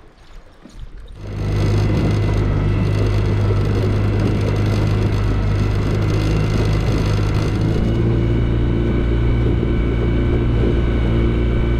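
Outboard motor on a small aluminum fishing boat comes up to speed about a second in, then runs loud and steady with a low hum as the boat travels across the lake.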